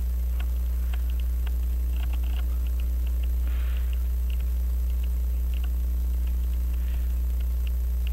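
Steady low electrical mains hum, with faint scattered light ticks and, about three and a half seconds in, one short soft hiss from a puff of air off a hand blower.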